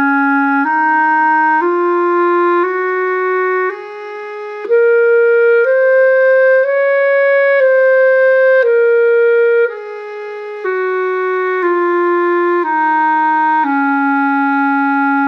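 Clarinet playing the E-flat major scale over one octave, stepping up note by note and back down to the starting E-flat, about one evenly held note a second with each note joined smoothly to the next.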